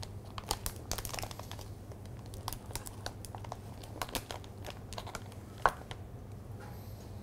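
Plastic bag crinkling as it is handled, with scattered small clicks and one sharp knock about five and a half seconds in.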